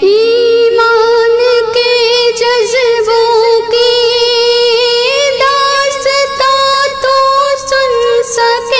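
A woman singing one long held note that wavers slightly and steps up in pitch about five seconds in, in a devotional song about a mother.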